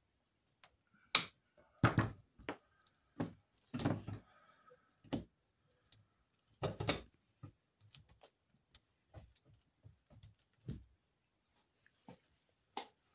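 Metal crossbow limbs and fittings being handled and fitted onto the stock on a wooden workbench: irregular clicks, clanks and knocks of metal parts against each other and the bench.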